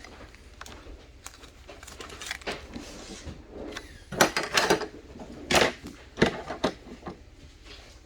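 Trading card packs and cards being handled: crinkling and rustling with light clicks, in a few louder bursts about four to seven seconds in.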